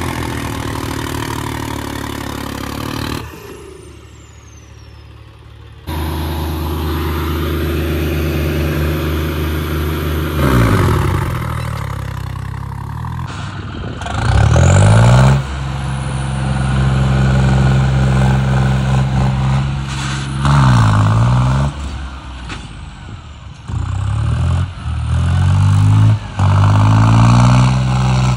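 John Deere tractor diesel engines revving hard under load, their pitch rising and falling again and again as two hitched tractors pull against each other in a tug-of-war. The sound changes abruptly several times, with a quieter stretch a few seconds in.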